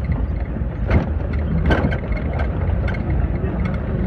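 Steady low rumble of a vehicle driving along a road, with engine and road noise. Two brief knocks come about one second in and just under two seconds in.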